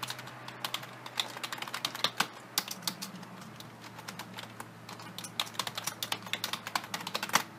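Typing on a computer keyboard: quick, irregular keystrokes, several a second, over a faint steady low hum.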